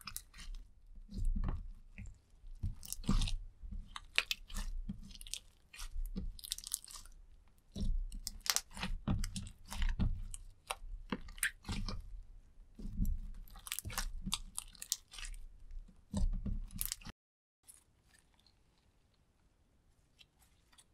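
Clear slime with red eyeshadow mixed in, squeezed and kneaded by hand, giving irregular clusters of sticky clicks, crackles and wet squelches. About three-quarters of the way through it cuts to a much fainter sound of slime being stretched.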